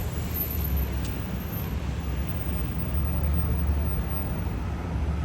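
City street ambience: a steady low rumble of road traffic, with a faint click about a second in.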